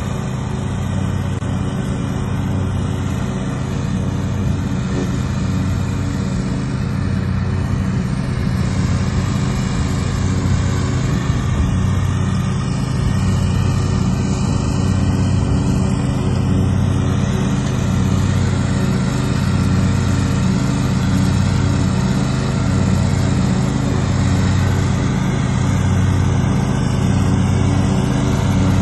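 Zero-turn riding mower's engine running steadily under load as the deck cuts through tall meadow grass, a constant drone with a slight pulse, growing a little louder toward the end.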